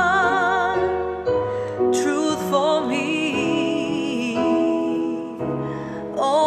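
Slow ballad backing music with piano. A held note with vibrato ends about a second in, and the accompaniment carries on without words.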